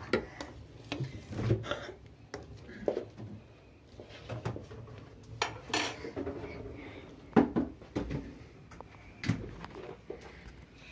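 A metal spoon clinking and scraping against a stainless steel saucepan as boiling vareniki are stirred, among scattered kitchen knocks and clatters; the loudest knock comes about seven and a half seconds in.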